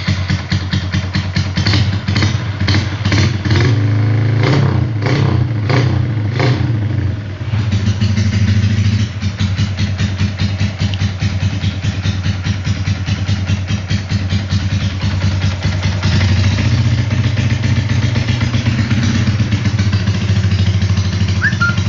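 Single-cylinder four-stroke engine of a Honda Wave 125i, bored up with a 56 mm piston on the stock stroke, revved in repeated short throttle blips over the first seven seconds. It then settles into steady running and picks up slightly about sixteen seconds in.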